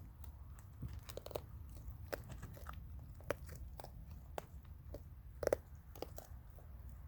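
Raccoons chewing hard food: a string of irregular crisp crunches, the loudest about five and a half seconds in, over a steady low rumble.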